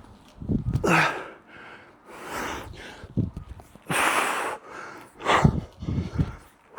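A man breathing hard while exercising: loud rushed breaths in and out, with short low grunts of effort between them.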